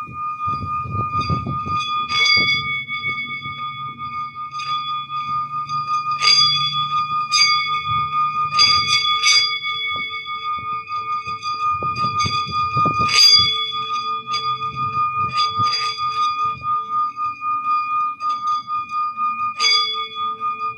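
Sound-healing bell tones: a sustained ringing tone with a regular pulsing waver, struck afresh about nine times with bright strikes. A lower ringing tone joins after the last strike, near the end.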